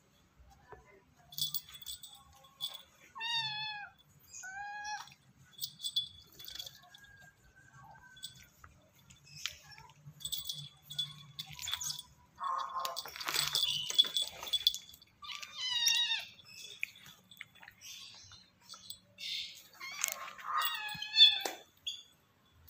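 A kitten mewing in several short calls, some dropping in pitch, while it play-fights with a baby otter. Short scratching and clicking noises from the scuffle come between the calls.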